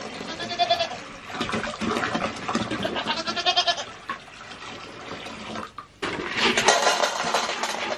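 Goat bleating twice, a short call about half a second in and a longer one around three seconds in, followed near the end by rustling and shuffling in hay bedding.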